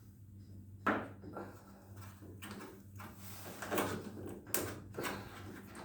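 A series of knocks and clicks, like plastic parts of a washing machine being handled, with the sharpest about a second in. A faint steady low hum runs underneath.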